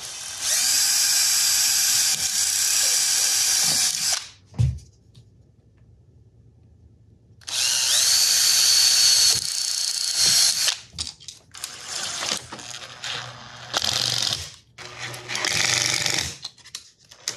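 Power drill driving screws: two long steady runs of a few seconds each, the motor whine changing pitch as the screw seats, then a string of short bursts near the end as the screws are snugged down.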